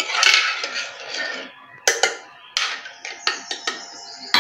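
A metal spoon stirring kanji in a pressure cooker. It scrapes against the pot for about a second and a half, then gives a run of sharp clinks and taps, metal on metal.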